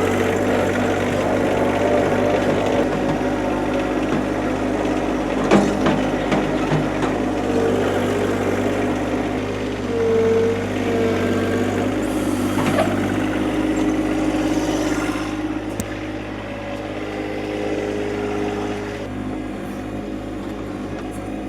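John Deere 2025R compact tractor's three-cylinder diesel engine running steadily while the backhoe is worked. A whine comes and goes several times, and there are a few sharp knocks about six and thirteen seconds in.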